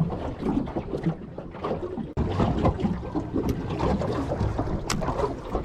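Wind buffeting the microphone on a small fishing boat, with water slapping the hull in uneven gusts and knocks, and one sharp click near the end.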